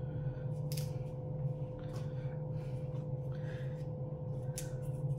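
Outer petals being pulled off a rose by hand: a few short, soft rustles and snaps as bruised petals come away, over a steady low hum in the room.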